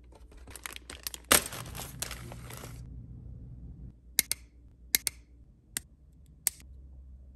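Crinkling and rustling as the plastic model kit and its packaging are handled for the first few seconds. Then about six sharp snips of hobby sprue cutters nipping plastic parts off the sprue, some in quick pairs.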